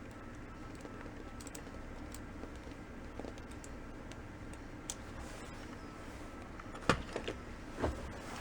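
Small clicks and taps of lens parts and tools being handled during disassembly: light scattered ticks, then a sharp click about seven seconds in, two smaller clicks right after, and a duller knock near the end.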